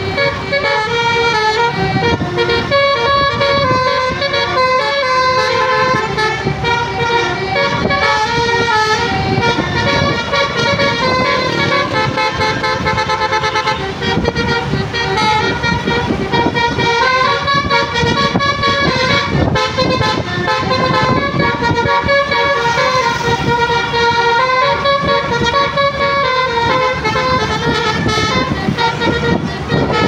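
A bus's Basuri telolet horn, a multi-tone musical air horn, playing a stepping melody over and over without a break, with the bus engine running underneath.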